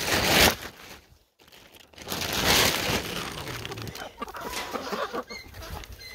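Chickens clucking softly in a wire-mesh coop, broken by two loud rustling bursts, one at the start and one about two seconds in.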